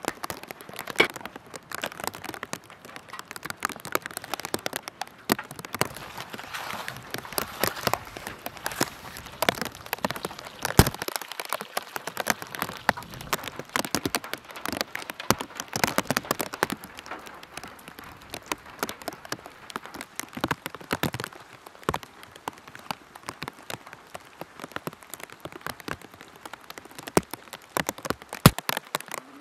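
Steady rain, with many close drops tapping irregularly on hard surfaces and one louder tap near the end.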